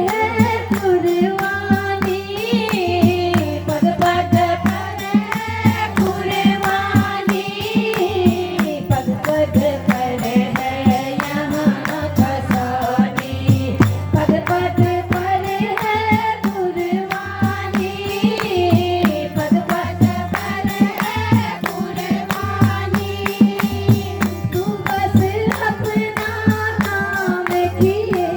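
A woman singing a Hindu devotional bhajan over a steady beat of jingling hand percussion and a low drum.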